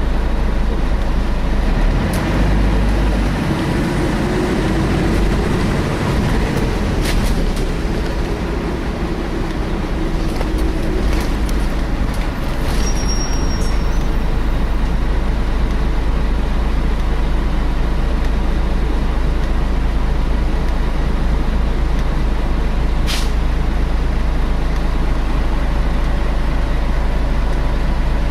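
Scania L113 bus heard from inside while it runs, its diesel engine and cooling fan making a steady drone with a steady whine. The engine note rises and falls in the first ten seconds or so. A brief high squeal comes about 13 seconds in, and a few short sharp hisses stand out.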